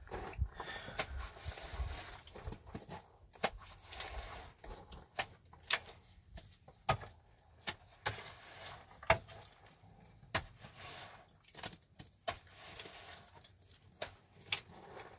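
Irregular series of sharp knocks and clicks, about a dozen standing out, with short scraping noises between them.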